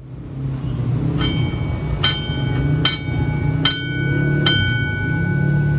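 Railway level-crossing warning bell, a large metal gong struck by its hammer five times, about once every 0.8 seconds, each strike ringing on; it signals that a train is approaching. A steady low rumble runs underneath.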